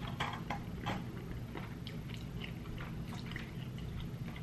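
Plastic fork stirring and lifting birria ramen noodles in broth in a foam cup, close to the microphone: scattered small clicks and soft wet squishes.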